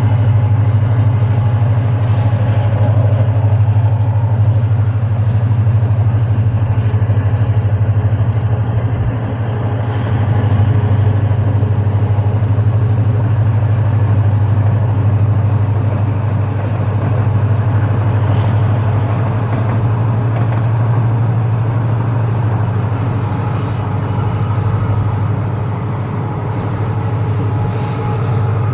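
Diesel locomotive engine running with a steady low drone, with a faint thin high whine twice during the second half.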